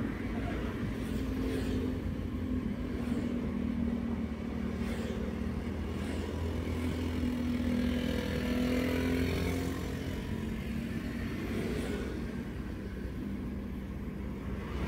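Daihatsu Terios driving in traffic: a steady low road rumble and engine drone, with an engine note that rises and then falls away about halfway through.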